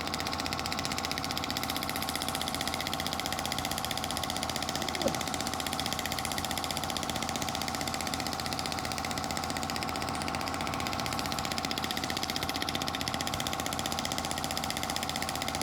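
Radial shockwave therapy device firing a rapid, steady train of pulses through its handheld applicator.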